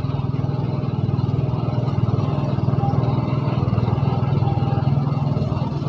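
A small engine running steadily at an even pace.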